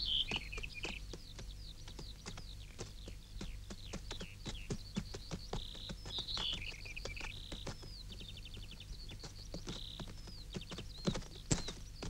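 Gazelle hooves clicking and tapping irregularly on dry, stony ground, with small birds chirping and whistling over it and a quick trill about two-thirds of the way through. A faint low hum lies underneath.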